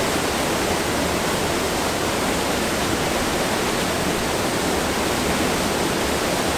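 Waterfall on a mountain creek, white water pouring over rocks in a steady, loud rush.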